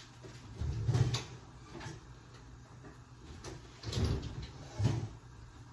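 A few dull knocks and bumps from handling things in a kitchen: a cluster about a second in, a softer one near two seconds, and two more near the end.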